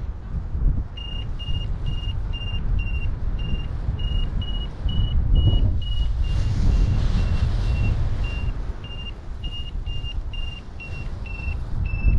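Paraglider variometer beeping at about two beeps a second, the tone that signals the glider is climbing in lift. The beeps turn fainter and sparser for a couple of seconds in the middle. Wind rushes steadily on the microphone underneath.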